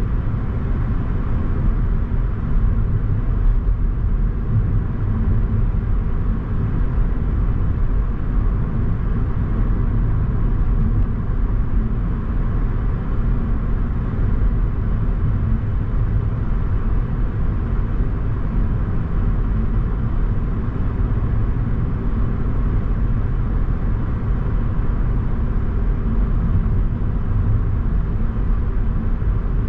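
Car driving steadily along a road: a continuous low rumble of tyres and engine that keeps an even pace throughout.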